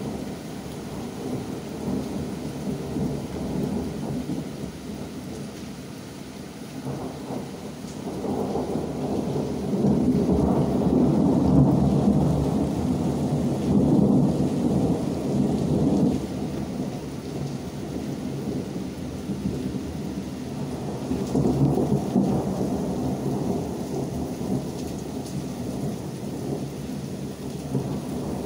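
Rolling thunder rumbling over steady rain during a severe thunderstorm. It swells loudest from about ten to sixteen seconds in, with a second swell a little past twenty seconds.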